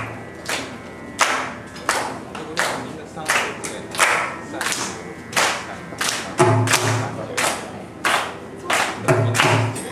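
Carnatic hand percussion playing a slow opening: sharp, ringing drum strokes every half second to a second, with deep bass strokes in pairs about six and a half and nine seconds in.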